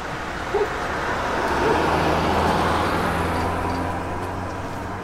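Road traffic: a motor vehicle's engine and tyre noise swelling as it passes, loudest about two seconds in, then fading.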